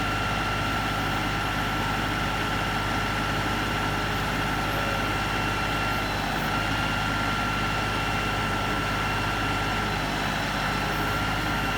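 LS XR3135 compact tractor's three-cylinder diesel engine running steadily, with a thin, steady high whine over it.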